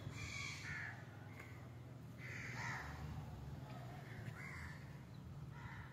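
A crow cawing several times, a second or two between calls, over a low steady hum.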